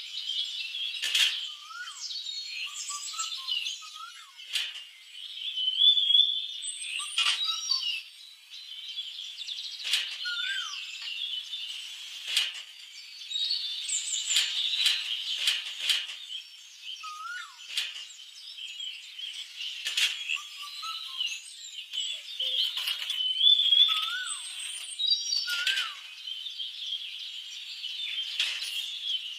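Small birds chirping and twittering steadily, with a sharp tap or click every few seconds.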